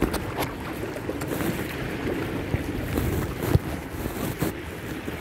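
Wind buffeting the microphone over waves washing against a rock wall at the sea's edge, with a few short sharp knocks, the loudest about three and a half seconds in.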